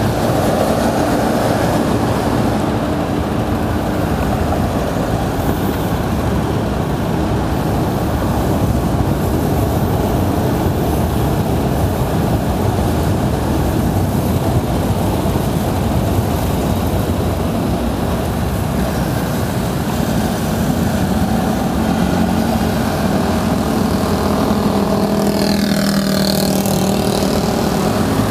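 Steady loud rumble of wind and road noise on the microphone of a moving electric scooter in city traffic. Near the end a motor vehicle's engine passes close, with a brief wavering higher sound.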